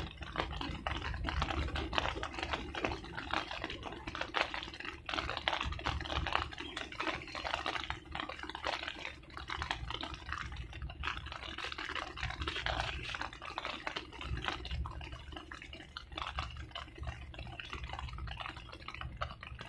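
Wind rumbling on the microphone, with a dense, irregular crackling patter over it throughout.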